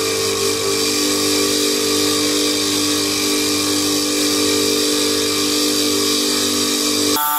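Bench-mounted buffing wheel motor running steadily with a hum and a high hiss while a metal microphone mesh grille is held against the spinning wheel to polish it. The sound changes abruptly near the end.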